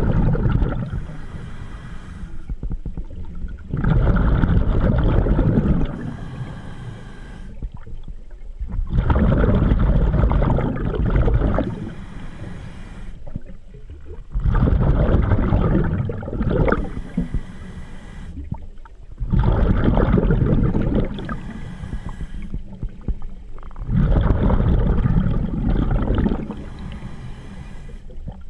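Scuba diver breathing through a regulator underwater: six long, bubbling exhalations about every five seconds, each followed by a shorter, fainter hiss of inhalation through the demand valve.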